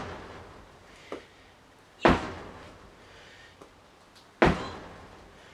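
Sledgehammer striking heavily in a steady swinging rhythm: two blows a little over two seconds apart, each ringing out briefly in a large room.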